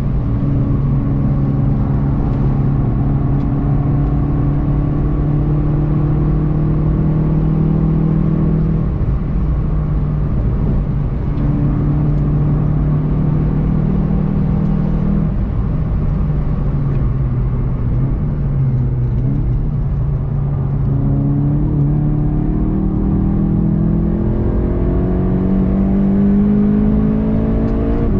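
Inside the cabin, a VW Golf 7 GTI TCR's turbocharged 2.0-litre four-cylinder engine runs at speed over steady tyre and road noise. The engine note holds level, breaks twice, then rises in pitch over the last several seconds.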